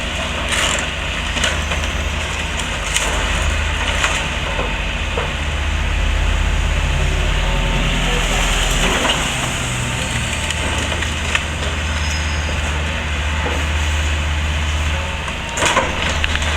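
Diesel excavator running steadily while it crushes part of a house, with repeated sharp cracks and splintering of wood and a burst of cracks near the end.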